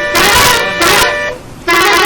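Multi-tone musical vehicle horn sounding a short tune in loud blasts, its pitch stepping up and down, with a break a little over a second in.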